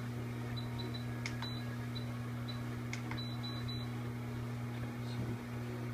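Steady low hum, over which an RC transmitter's buttons give a few short high-pitched beeps and light clicks as its channel-mix setting is changed.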